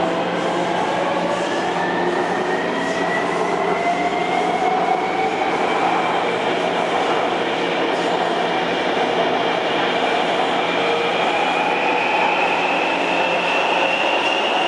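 Taipei Metro C321 train's VVVF traction inverter whining, its pitch rising steadily as the train accelerates, over wheel and rail running noise.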